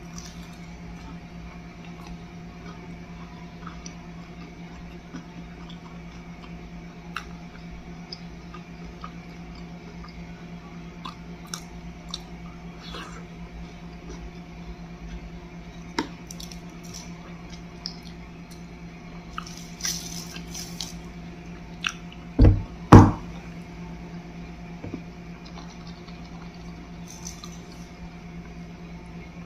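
Close-up chewing of soft green onion pancake, with small wet mouth clicks, over a steady low hum. About three quarters of the way through come two loud thumps close together.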